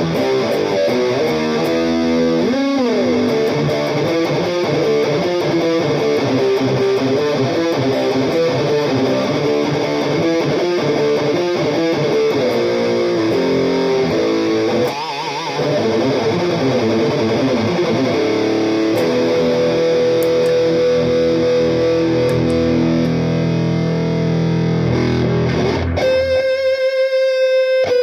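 Electric guitar played through a compact effects pedalboard with distortion: riffs and held notes with pitch bends. Near the end the tone changes to a thin, high, wavering sound with the low end gone.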